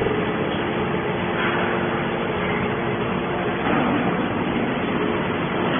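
Hydraulic scrap metal baler running: a steady mechanical din with a faint constant hum.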